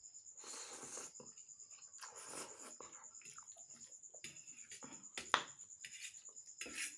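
Close-up eating of Maggi instant noodles with onion: irregular chewing and mouth sounds, with one sharp click about five seconds in. A steady high cricket chirring runs underneath.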